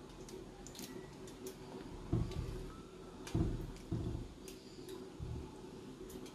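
A person chewing a mouthful of sweet paratha, with light crackles of the aluminium foil it rests on and four dull low thumps, the loudest about three and a half seconds in.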